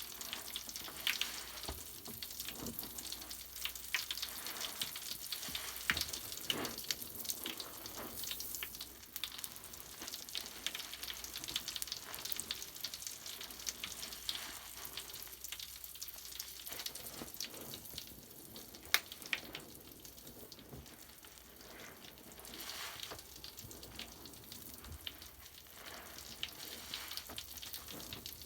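Bubble bath foam crackling: a dense, fizzing crackle of tiny bubbles popping, with scattered sharper pops and one louder pop about two-thirds of the way through.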